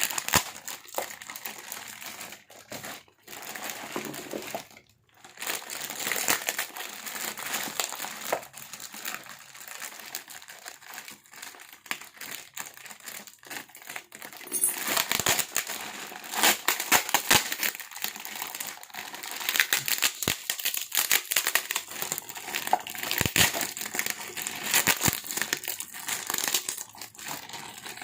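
Packaging crinkling and rustling as it is handled and unwrapped, in irregular bursts that get busier and louder about halfway through.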